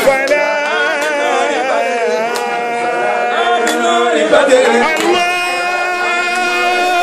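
A group of men singing together without instruments, holding long notes with slow glides between them.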